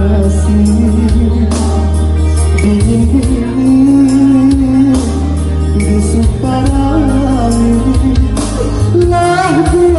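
A male voice singing a Minang (Padang) pop song through a microphone and PA, over electronic keyboard accompaniment with a steady heavy bass.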